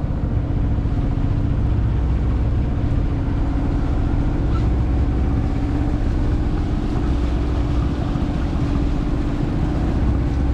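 Sailing yacht's engine running steadily under way, an even hum with a low rumble and no change in pitch.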